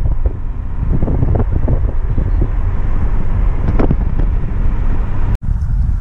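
Wind buffeting an action-camera microphone: a loud, uneven low rumble with scattered knocks, cutting out for an instant about five seconds in.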